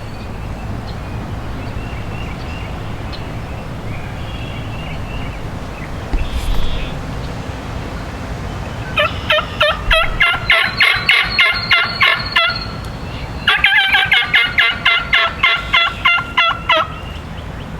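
Turkey calls: two runs of rapid, evenly repeated notes, each about three to four seconds long, about a second apart, over steady wind noise.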